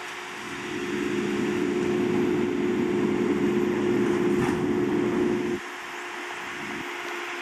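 McNeilus refuse truck's engine raised to a higher speed to drive the body hydraulics, a steady hum with a held tone. It cuts off suddenly about five and a half seconds in and drops back to a quieter idle.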